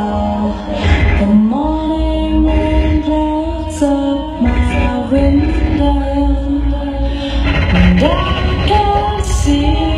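DJ set music: a sung or synth-like vocal melody of held, gliding notes over a continuous heavy bass line.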